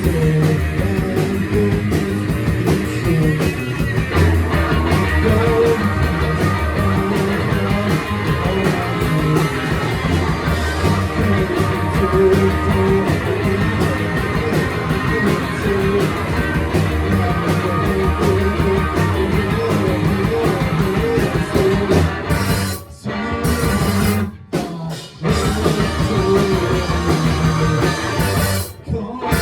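Rock band playing live, with electric guitars and a drum kit. Near the end the whole band cuts out three times for a split second and comes back in, stop-start accents.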